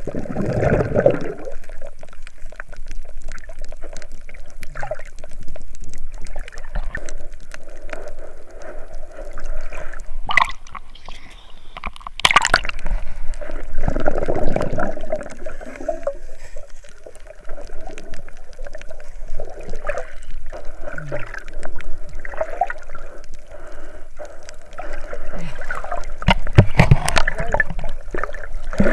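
Seawater sloshing and gurgling close by, with louder surges of splashing about a second in, midway and near the end.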